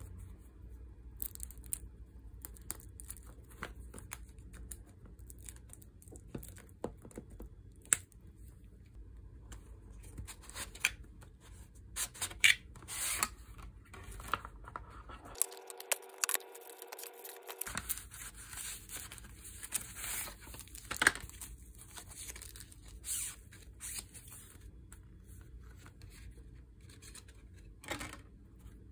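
Hands opening a cardboard screen-protector box and handling the glass protector with its paper and plastic wrappings: scattered light taps, rustling, and tearing of paper and film.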